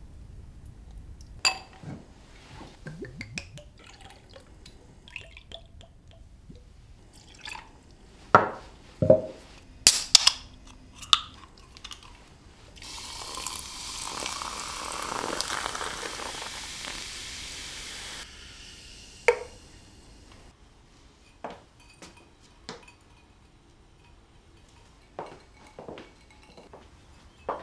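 Liquid poured into a balloon glass over ice and a lime wedge, a steady pour lasting about five seconds before stopping abruptly. Before and after it come scattered knocks and glassy clinks of glass, bottles and ice, with a cluster of sharp ones shortly before the pour.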